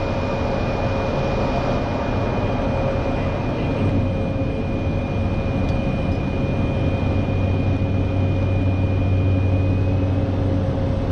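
Cessna 208EX Grand Caravan's single PT6A-140 turboprop engine and propeller running steadily, heard from inside the cockpit, with a thin high steady tone over it for most of the time.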